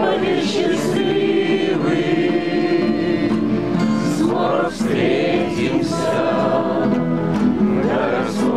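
A group of men singing a Russian bard song together to several strummed acoustic guitars.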